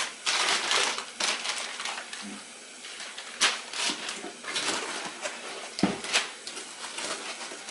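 Cardboard box and packing material being handled and opened: irregular crinkling and rustling with scattered sharper clicks and knocks.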